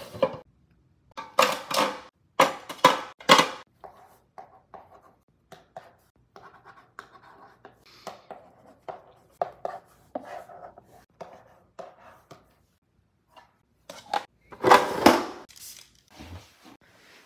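Dustless chalk scratching across a chalkboard-wallpaper tabletop in a long run of short strokes as words are written, with louder clattering bursts near the start and again near the end.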